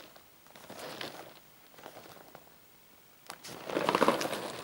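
Cardboard cereal box rustling as it is handled and turned over in the hands: a soft rustle about a second in, then a louder burst of rustling and scraping near the end.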